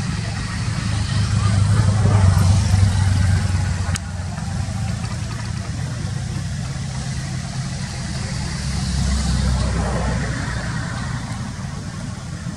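Steady low rumble of motor traffic, swelling twice as vehicles pass, about two seconds in and again around nine seconds.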